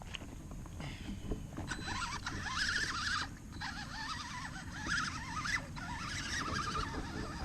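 Electric motor of an RC truck whining, its pitch wavering up and down with the throttle as the wheels churn in mud, over a rough low rumble from the drivetrain and tyres.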